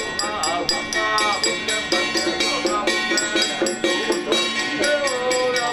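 Traditional temple ensemble music: a quick, steady beat of drum and small cymbals, about five strokes a second, under a gliding melody line.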